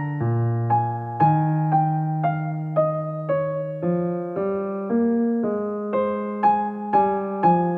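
Background music: a gentle electric piano melody, with a note struck about every half second.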